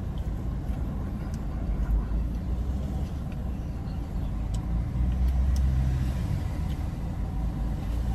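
Low rumble of motor vehicles, swelling about five seconds in as one comes close.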